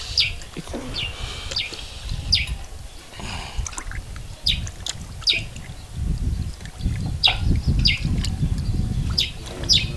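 A knife scraping a fish in a plastic basin of water: short, sharp rasping strokes, about one a second, over a low rumble.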